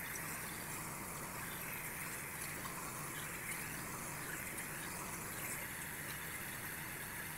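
Pressure-washer spray rinsing the house siding: a steady hiss of water jetting from an extension wand and spattering against the wall.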